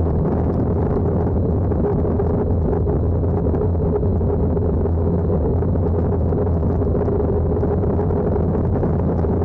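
Steady engine drone of a moving vehicle: a constant low rumble with a steady hum above it, unchanging throughout.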